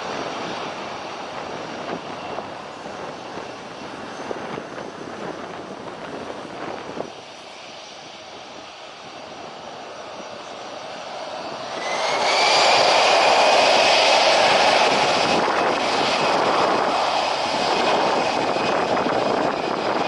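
Jet airliner engines heard close by: a steady rumble that drops off suddenly, then builds to a loud jet noise with a high whine as an aircraft passes.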